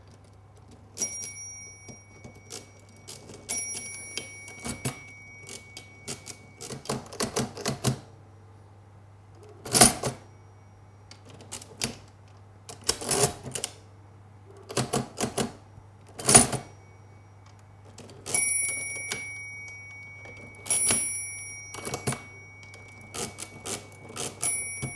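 Facit NTK mechanical calculator being worked through a division by its handle: repeated clacking turns of the stepped-drum mechanism. The bell rings twice and holds for several seconds each time, the overdraft bell that signals the accumulator has gone past zero.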